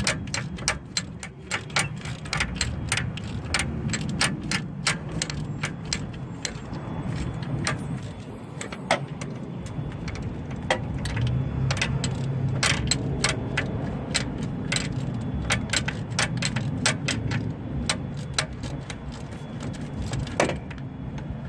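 Ratchet wrench clicking in long runs, a few clicks a second, as the long 14 mm alternator mounting bolt is backed out, over a low steady rumble.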